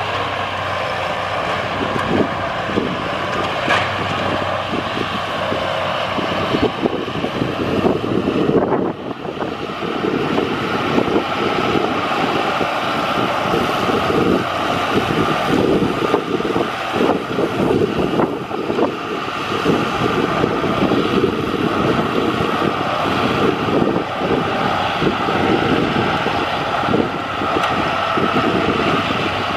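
John Deere tractor's diesel engine running steadily under load while its mounted snowblower spins and throws snow, with a brief dip in level about nine seconds in.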